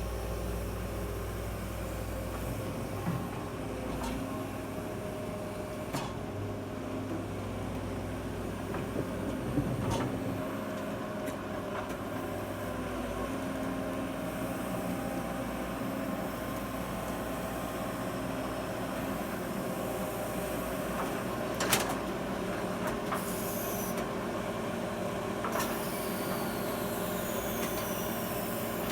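Diesel engine of a walking excavator running steadily, with a few sharp knocks, the loudest about two-thirds of the way through.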